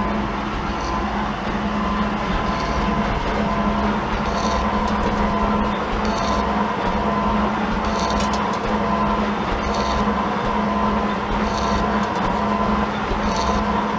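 Gould & Eberhardt metal shaper running steadily as its ram strokes back and forth, the tool planing a steel block. There is a constant motor hum and a short clatter about every two seconds, once per stroke cycle.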